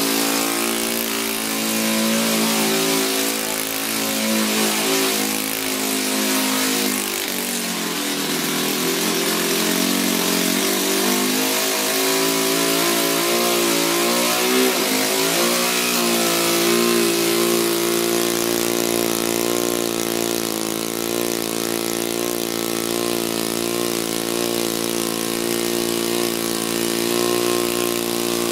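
O.S. four-stroke model engine with overhead valves and pushrods, running on methanol–castor oil glow fuel. Its speed rises and falls for the first half, then it settles to a steady speed.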